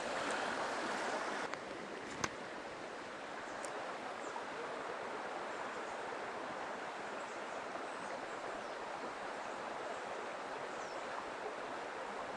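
Mountain stream water rushing steadily, with one sharp click about two seconds in.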